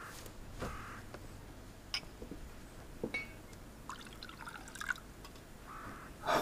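Quiet handling sounds at a wooden table: a few scattered light taps and clinks, with a denser cluster of small clinks and a trickling sound about four to five seconds in.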